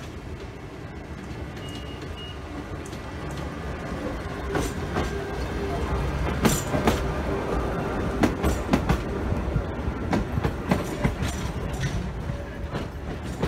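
Sóller's vintage wooden electric tram No. 3, towing open trailer cars, passes close by. A rumble builds from about four seconds in, then its wheels clack rapidly over the rail joints as the cars go by.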